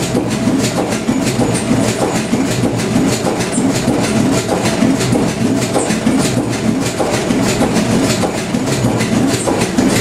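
Kromhout 2H3 marine diesel engine running at a steady speed, its beats making an even, rhythmic mechanical clatter.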